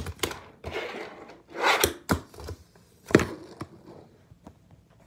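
Fingerboard tricks on a tabletop obstacle: short runs of small wheels rolling and scraping, each ending in sharp wooden clacks as the deck pops and lands. The loudest clacks come a little under two seconds in and a little after three seconds in.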